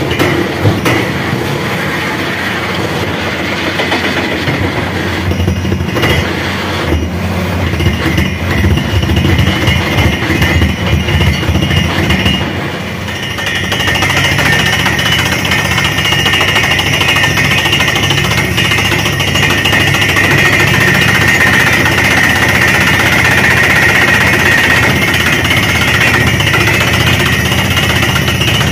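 Truck-mounted borewell drilling rig running as its drill bores into the ground, with a rattling, hammering clatter. About 13 s in, the noise dips briefly. Then a steady hiss rises over the machinery as compressed air blows dust and cuttings up out of the borehole.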